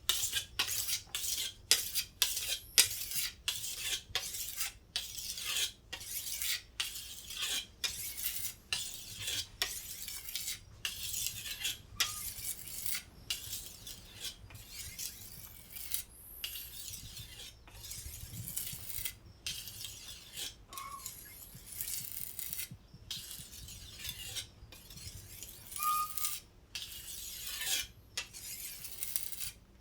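A kitchen knife being sharpened: the steel blade is drawn again and again against a sharpener in short, scraping strokes. The strokes come about two or three a second at first, then turn longer and run closer together, with an occasional brief metallic ping.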